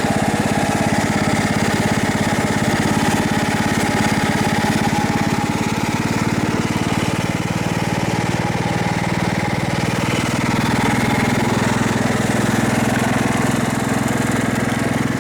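Riding lawn mower engine running steadily under load while towing another riding mower, its pitch dropping slightly about ten seconds in.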